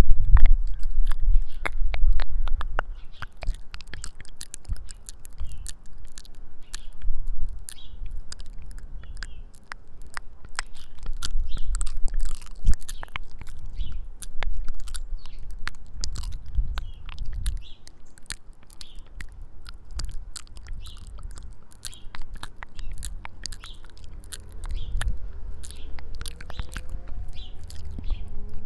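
Close-miked mouth sounds: many quick, wet lip smacks and tongue clicks. Birds chirp in the background over a low rumble that swells and fades, and a faint rising wail starts near the end.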